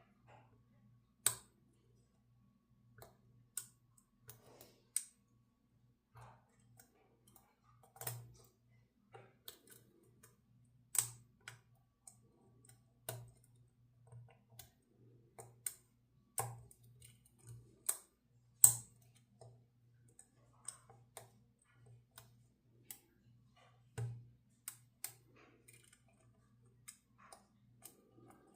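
Lock picking in a pin-tumbler challenge lock with an SC4 keyway: irregular small clicks and taps of the pick and tension wrench working the pins and cylinder, a few of them sharper and louder.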